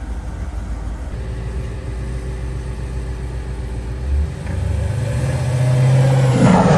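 2007 Dodge SRT8's 6.1-litre Hemi V8 running at low revs with a steady rumble. It gets louder about five seconds in and the revs climb near the end as the car accelerates.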